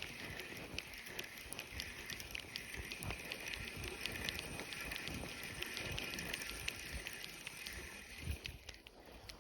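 Spinning fishing reel being cranked to retrieve a lure: a whirring that swells and fades with each turn of the handle, a little over once a second, with light handling knocks, stopping near the end.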